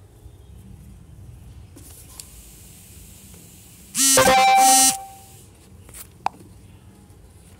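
A loud horn-like tone sounds once, steady in pitch, for about a second.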